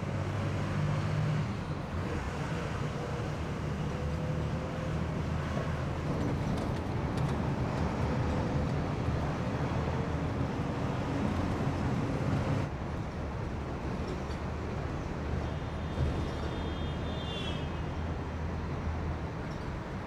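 Bus engine running with steady road noise, heard from inside the moving bus in city traffic. The tone shifts about two-thirds of the way through, and a brief high squeal that bends downward comes near the end.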